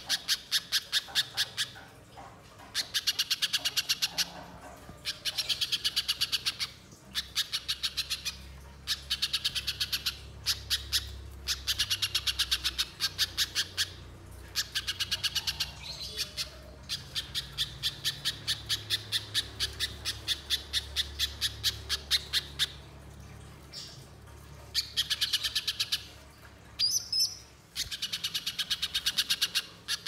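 Little spiderhunter calling: runs of rapid, sharp repeated notes, each run lasting one to two seconds, with short pauses between runs.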